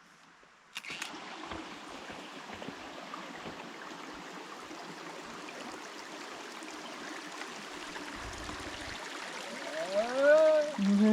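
Steady rushing of a flowing stream, starting suddenly about a second in, with a person's voice heard briefly near the end.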